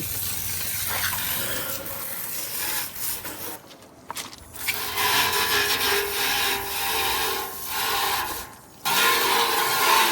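Garden hose spray nozzle rinsing a heat pump's outdoor coil, a steady hiss of water that is let off twice, about four seconds in and near the end, and comes straight back on.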